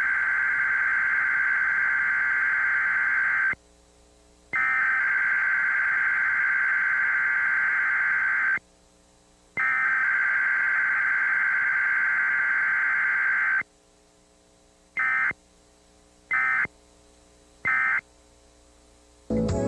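Emergency Alert System digital header, a high buzzing data tone sent three times in blocks of about four seconds with a second's pause between, followed near the end by three short end-of-message blips.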